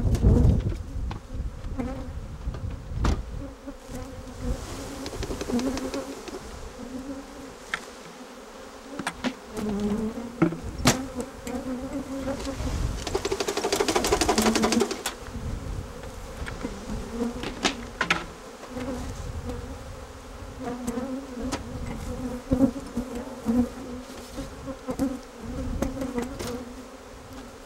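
A mass of honeybees buzzing as they are shaken out of hive boxes, a dense wavering hum. Sharp knocks come now and then as the wooden boxes are jarred to shake the bees down, and the noise swells about halfway through while a box is tipped over the bucket.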